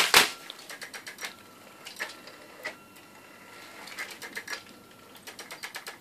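Homemade Raspberry Pi robot vacuum running its autonomous program: a loud knock at the start, then irregular mechanical clicking and ticking in loose clusters.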